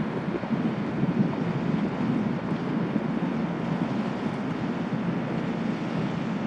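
High-speed catamaran ferry running past at speed, its engines a steady low drone mixed with the rush of its wake and harbour water. Wind buffets the microphone.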